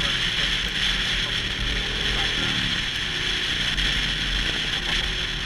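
Motorcycle on the move: steady engine and road noise under a constant rush of wind, with no let-up.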